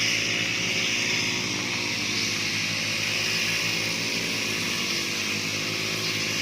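Petrol grass cutters running steadily at working speed, an even engine drone with no break.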